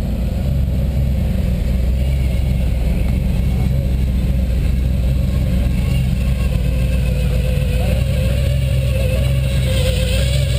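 V8 cars idling and creeping past at walking pace with a steady low rumble. They are a second-generation Chevrolet Camaro Z28, then a supercharged 1963 full-size Chevrolet.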